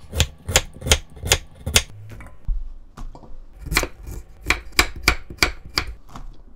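Kitchen knife cutting through kohlrabi and then carrot, the blade knocking on a wooden cutting board about three times a second, with a pause of about a second and a half near the middle.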